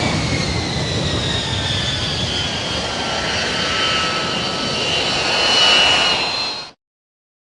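Jet aircraft flying past, a loud rushing roar with high whining tones that slowly fall in pitch, swelling near the end before cutting off abruptly.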